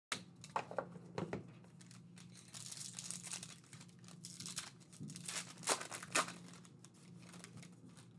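Foil wrapper of a trading card pack being torn open and crinkled, with a few sharp clicks near the start.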